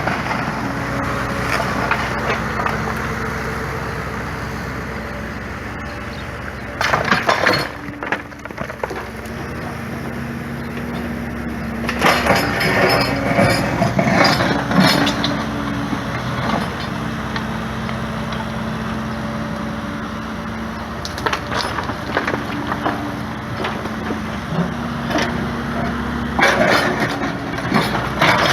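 Heavy earth-moving machine's diesel engine running steadily, with several bursts of crashing and scraping as broken concrete and rubble is scooped, scraped and dropped.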